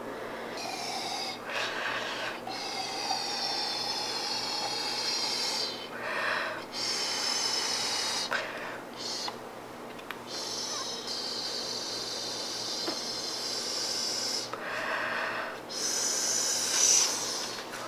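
Breath blown through a plastic straw into glitter putty slime, inflating it into a large bubble: a steady, breathy hiss of air in several long blows with short breaks between them.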